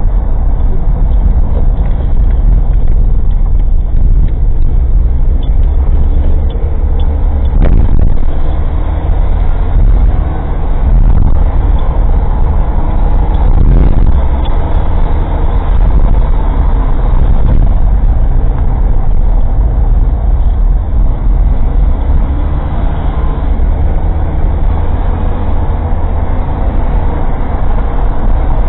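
Old kei car's engine and road noise picked up inside the cabin by a cheap dashcam: a steady low rumble with rattling, and an occasional sharp knock, the loudest about eight seconds in.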